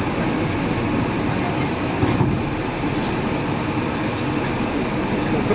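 Yurikamome 7300 series rubber-tyred automated guideway train running along its guideway, heard from inside the leading car: a steady rumble of tyres and running gear, with a couple of sharp knocks about two seconds in.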